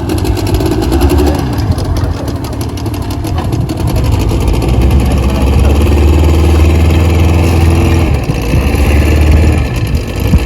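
Fishing trawler's engine running with a steady low hum, growing louder a few seconds in.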